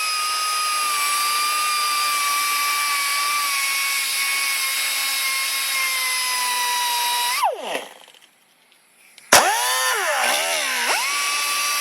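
A handheld electric power tool runs with a steady high whine that slowly sags in pitch, then winds down about seven seconds in. After a short quiet it clicks back on, its pitch dipping and recovering before running steady again.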